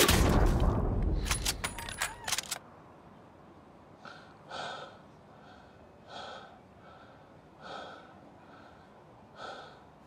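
The rumble of gunfire dies away over the first two seconds or so, with a few sharp clicks at its end. Then a man breathes heavily, one breath about every second and a half.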